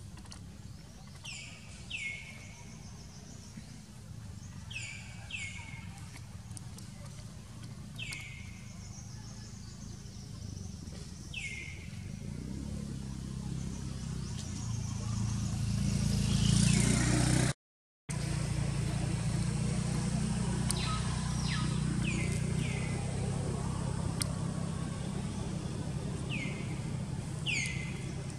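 A bird repeatedly gives short falling chirps, often two in quick succession, every few seconds over a low outdoor rumble. The rumble swells to its loudest about seventeen seconds in, then the sound cuts out for a moment.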